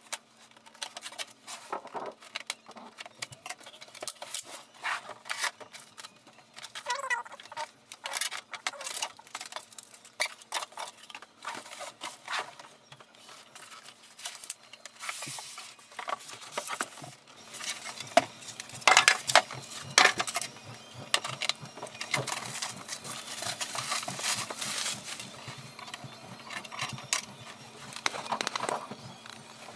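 Cardboard printer box and its packing being handled: flaps opened and foam inserts and wrapping pulled out, giving irregular knocks, scrapes and rustling, with a denser stretch of rustling in the second half.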